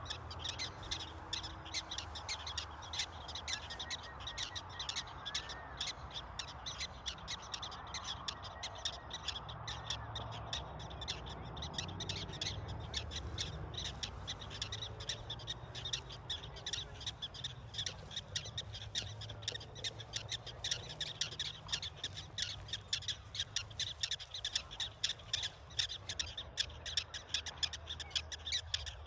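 Prairie dogs calling: a steady run of short, high chirping barks, several a second, growing louder toward the end. This repeated chirping is the colony's alarm call at a person approaching the burrows.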